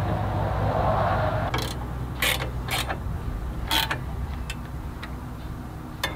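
A rough scraping noise as a chainsaw is set into an Alaskan chainsaw mill, then sharp metal clicks and clinks, a second or so apart, of a wrench working the mill's bar-clamp bolts.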